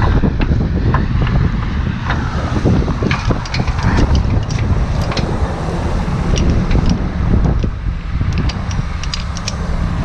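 Strong wind buffeting the microphone in a heavy, uneven low rumble, with scattered short clicks and knocks throughout.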